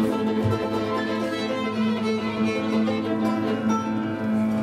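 Small live band playing the instrumental introduction to a song, the violin carrying the tune in long held notes over the accompaniment.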